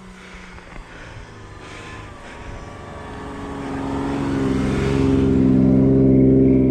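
Engine of an off-road 4x4 truck working through deep snow. It grows steadily louder from about halfway through as it draws near, holding a fairly even pitch, and is loudest near the end.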